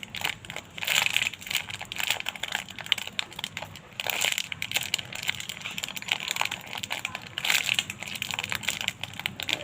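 Crumpled plastic packaging of a burger-shaped squishy toy crinkling and crackling as it is handled and squeezed, in several bursts.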